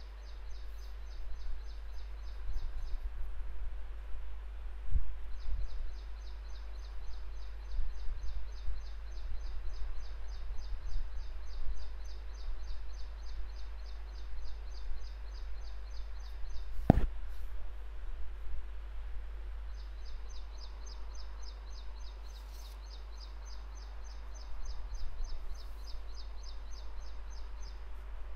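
Rapid, evenly repeated high-pitched chirping in long trains that stop and start, over a steady low hum. A single sharp click about seventeen seconds in.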